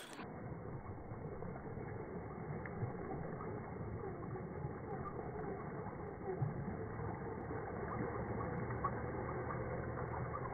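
Radio-controlled 4WD scale crawler with a Jeep Wrangler Rubicon body driving through a muddy puddle, its wheels churning and splashing water in a steady, dull, muffled wash of noise.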